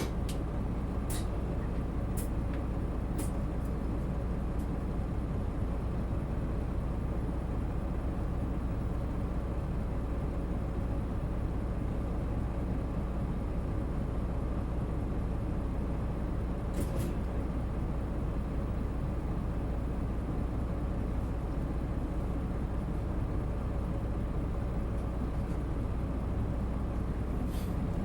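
Isuzu Erga Mio (PA-LR234J1) bus running, heard on board: a steady low engine rumble at an even level, with a few short clicks about halfway through and near the end.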